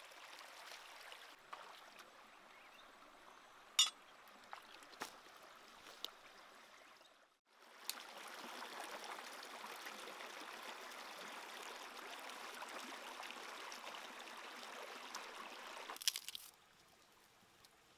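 A shallow rocky stream running, with a few sharp knocks in the first several seconds, the loudest about four seconds in. After a brief drop about seven seconds in, louder water rushes over rocks until it gives way to a much quieter stretch near the end.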